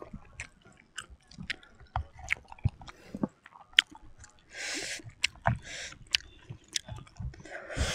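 Close-up eating sounds: sharp crackles and smacks as a whole grilled chicken is pulled apart by hand and chewed, with two longer hissing bursts, one about halfway through and one at the end.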